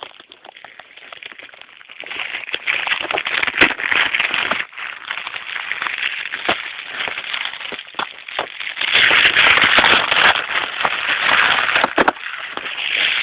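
Loud crackling and ripping as a printed wrap is peeled and torn off a BB gun case, starting about two seconds in with sharp snaps mixed in, loudest near the end.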